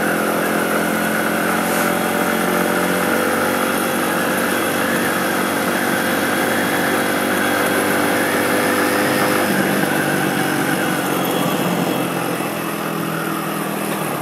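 125cc motorcycle engine running at steady road speed, with rushing noise over it. The engine note fades away about three-quarters of the way through, and the whole sound quietens slightly near the end.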